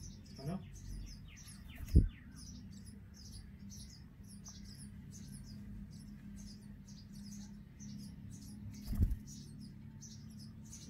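Indian robin nestlings giving a steady run of short, high, thin begging calls, about two to three a second. There is a sharp thump about two seconds in and another near the end.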